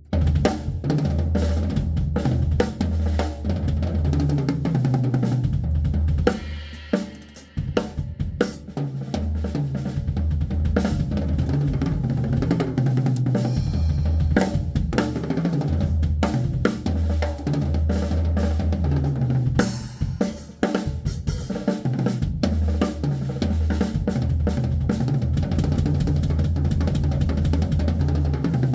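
Drum kit played in fast machine-gun bursts: rapid strokes on bass drum and snare with cymbals and hi-hat. The playing breaks off briefly about six seconds and again about twenty seconds in.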